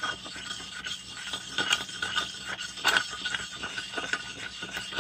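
A small tool scraping and stirring wet red ochre paste against a flat stone slab, making a busy run of gritty scratches and clicks.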